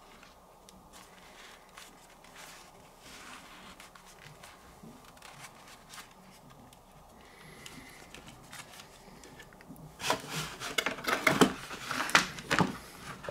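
Handling noise from headphones and their packaging: soft scattered rustles and clicks, then a louder run of quick clicks and rustling over the last three seconds.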